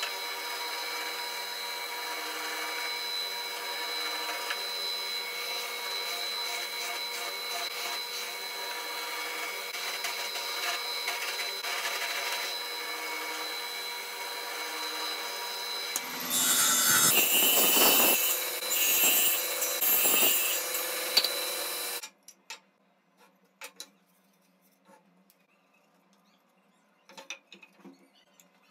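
Electric drill mounted horizontally as a slot mortiser, its 12 mm bit running with a steady whine while a wooden rail is pushed against it and slid along to cut a slot mortise, with a rough rasping of the bit chewing wood. For several seconds the cutting gets louder and rougher, then about three-quarters of the way in the sound stops abruptly, leaving only a few faint wooden taps.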